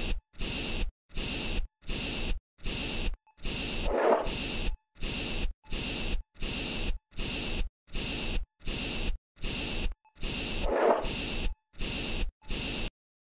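Trigger spray bottle sound effect: a quick run of short hissing sprays, each about half a second long with brief gaps between them. Two longer sprays, about 4 and 11 seconds in, have a deeper rushing sound mixed in. The spraying stops shortly before the end.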